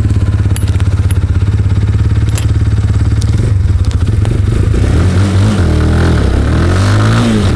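Falcon Speedfire 250 motorcycle's 250 cc engine idling steadily, then pulling away about three seconds in, its pitch rising and falling as the rider accelerates off.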